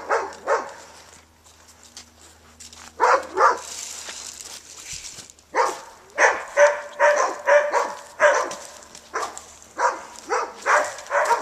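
A dog barking repeatedly: two barks about three seconds in, then a steady run of barks from about halfway through.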